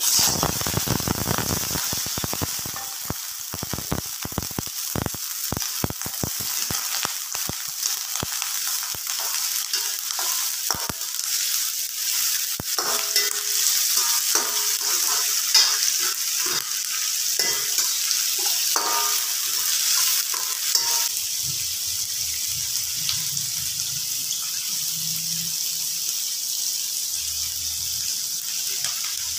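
Sliced onions hitting hot oil in a steel wok: a sudden loud sizzle with fast crackling and popping that thins out after about ten seconds. A metal slotted spoon stirs the onions, clinking and scraping against the wok, and the frying settles to a steadier hiss about twenty seconds in.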